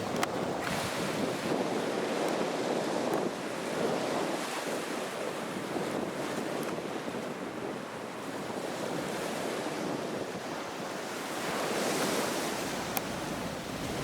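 Surf washing up a sandy beach, an even rush that swells and fades, loudest early on and again near the end, with some wind on the microphone and a short click about a second before the end.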